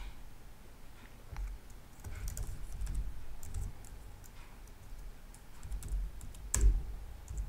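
Typing on a computer keyboard: irregular key presses, with one sharper, louder click near the end.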